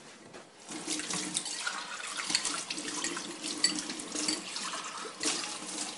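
Kitchen tap running into a stainless steel sink, starting about a second in, with water splashing over hands rinsing a clear container.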